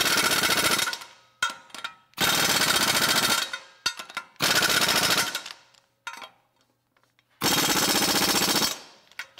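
Air impact wrench hammering lug nuts tight through a 100 ft-lb torque extension, in four bursts of about a second each, one nut after another. The torque stick flexes under the hammering, so each nut stops at 100 foot-pounds and cannot be over-tightened.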